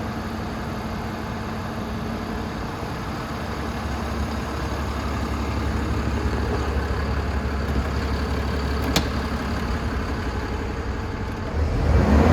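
DAF CF250 truck's diesel engine idling steadily, growing slightly louder partway through. A sharp click comes about nine seconds in, and a louder noise swells in just before the end.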